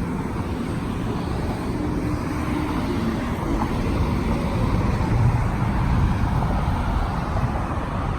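Road traffic: a steady rumble of passing cars, growing louder about five seconds in as a vehicle goes by.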